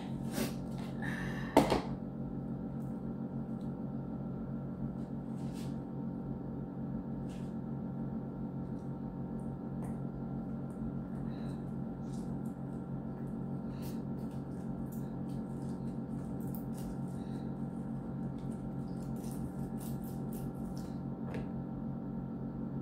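A steady hum of several held tones from a running appliance, with two knocks in the first couple of seconds. Faint scattered clicks and scrapes follow as a citrus half is twisted on a plastic hand juicer.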